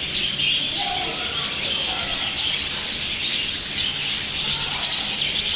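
A flock of budgerigars chattering and warbling, many high chirps overlapping without a break.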